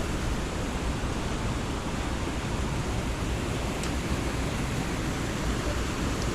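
Creek water rushing steadily over a small waterfall.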